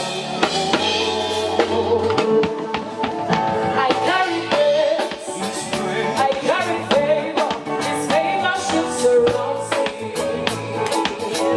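Live gospel band music: a drum kit keeping a steady beat under melody instruments, with some singing but no clear words.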